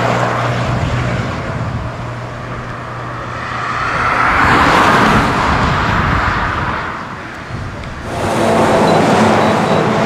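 Road traffic passing close by: the tyre and engine noise of vehicles swells and fades, loudest about halfway through and again near the end.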